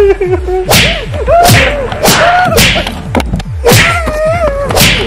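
Series of whip-crack and swish strokes, about six in five seconds, laid over a beating. Between them runs a wavering high melodic line, with quick falling low thuds beneath.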